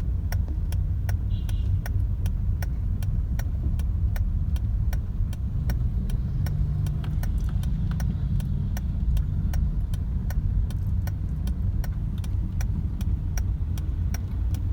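Honda City car engine idling in second gear as the car creeps slowly without throttle, a steady low rumble inside the cabin. A regular ticking, about three ticks a second, runs over it.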